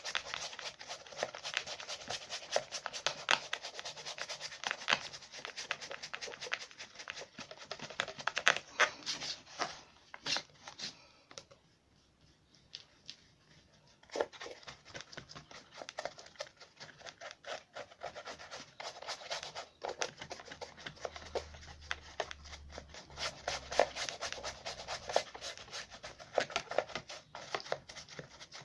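Paper model boat being handled close to the microphone: irregular rubbing and scratchy crackling of card, with many small clicks and a short pause about twelve seconds in.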